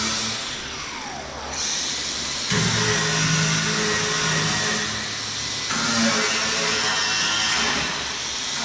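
Handheld power tool running on sheet metal. Its pitch falls as it winds down about a second in, then it runs steadily again from about two and a half seconds.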